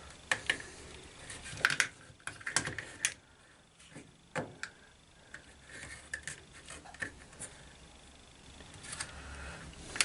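Irregular small clicks, taps and light rattles of plastic and metal parts being handled: wire connectors being worked onto the washing machine's door latch.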